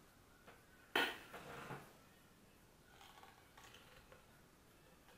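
A knife knocks sharply once against a wooden cutting board about a second in, followed by a brief scrape as it works into the flesh of a salmon; after that only faint small handling sounds.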